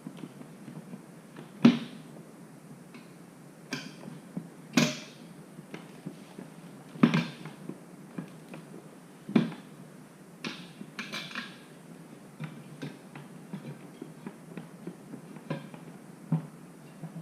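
Tools clinking and knocking against a motorcycle wheel rim as a front tire is worked onto it by hand. The sound is scattered small clicks with a handful of sharper knocks.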